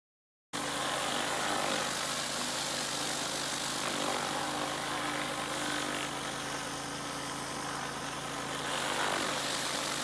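Pressure washer engine running steadily under the hiss of water spraying from a surface cleaner over concrete, starting abruptly about half a second in.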